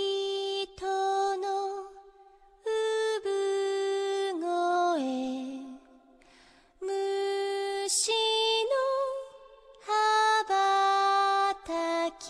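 A girl's voice singing a slow Japanese song alone, with no accompaniment, in held, lullaby-like phrases broken by short pauses for breath.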